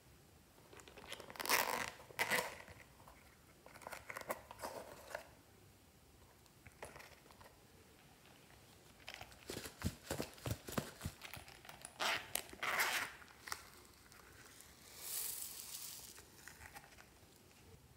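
Hands handling and opening plastic toy containers over a tray of slime: irregular bursts of crinkling and rustling with small clicks, separated by quiet gaps. Near the end a soft pattering hiss as foam beads are poured out of an opened container onto the slime.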